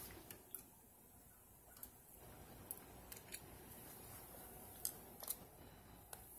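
Near silence: room tone with about nine faint, irregular clicks, the two loudest close together near the end.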